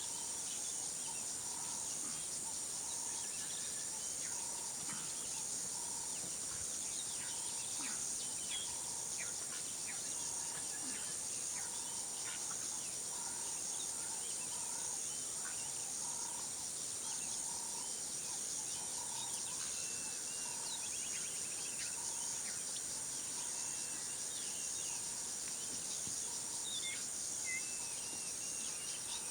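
Bushveld ambience: a steady high-pitched drone of insects, with a short note repeating about once a second and scattered bird chirps.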